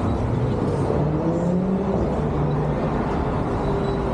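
City street traffic: cars driving past, a steady, even hum of road noise.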